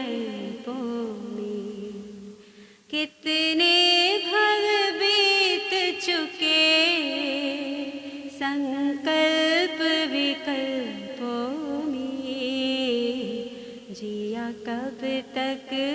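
A woman singing a Hindi devotional song (bhajan) solo, in long held notes that waver in pitch, with a short break about three seconds in.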